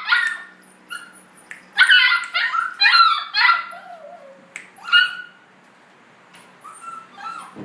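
Puppy in a wire crate giving short, high-pitched yips: a quick run of them about two seconds in, a single yip about five seconds in, and softer whimpering yips near the end.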